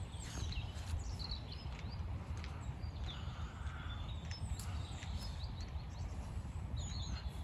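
Outdoor ambience: birds chirping in short calls over a steady low rumble, with a few faint ticks.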